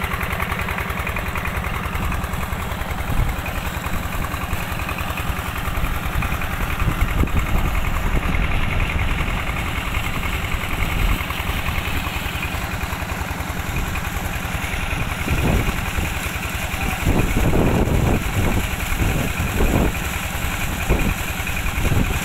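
Small stationary diesel engine running steadily with a rapid, even firing beat as it drives a tube-well water pump, while water gushes from the outlet pipe into a concrete tank.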